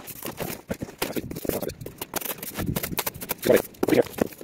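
Cardboard boxes rubbing, scraping and knocking as a boxed unit is worked out of its outer shipping carton. The knocks and scrapes come irregularly, and the loudest are near the end.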